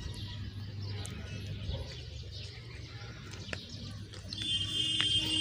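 Force Sanman 5000 tractor's diesel engine running steadily at low revs. About four seconds in, a high-pitched, level whistling tone joins it for a second and a half.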